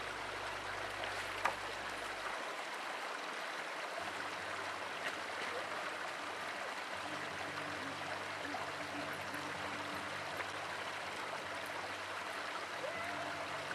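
Rocky mountain stream running over stones and a small waterfall: a steady rush of water, with one sharp knock about a second and a half in.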